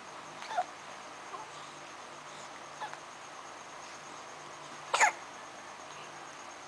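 A baby hiccupping: a few short hiccups, each a quick squeak that drops in pitch, the loudest about five seconds in.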